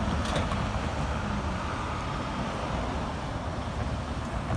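Road traffic passing close by, heard as a steady noisy rush with low wind buffeting on the microphone.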